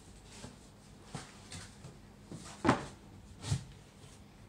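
A few short knocks and bumps, the loudest nearly three seconds in, like objects being handled and set down.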